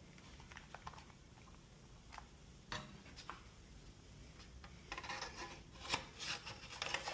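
Faint, scattered clicks and rubbing of hard plastic being handled as a new touch-screen radio unit is fitted into its dash fascia, with the clicks coming a little more often in the second half.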